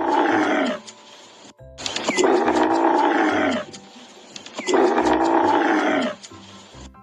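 Camel calling: a short call, then two long, deep calls of about two seconds each, each sliding down in pitch.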